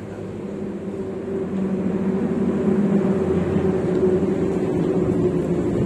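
A motor vehicle engine running with a steady low hum, growing louder over the first two to three seconds and then holding steady.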